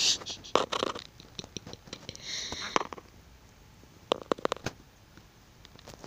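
Close-up clicks and scratching as a green-cheeked conure's beak and feet work against the phone, with a short hiss about two seconds in.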